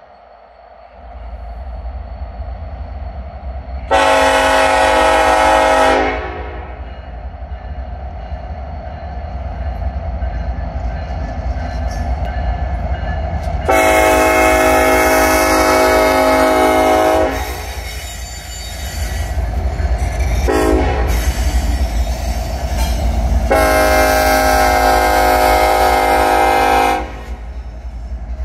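Air horn of Norfolk Southern diesel locomotive NS 1159 sounding the grade-crossing signal: long, long, short, long. Under it the locomotive's diesel engine rumbles, building as the train approaches.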